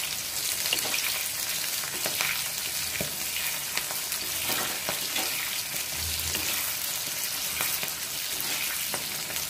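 Capsicum, onion and green chillies deep-frying in hot oil in an iron kadai, a steady sizzling hiss. A perforated metal skimmer stirs them, with scattered scrapes and clicks against the pan.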